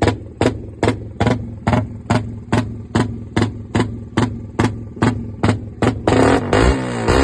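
Engine with a loud open exhaust pipe idling slowly, each firing a sharp pop at about two to three a second, then revved up about six seconds in.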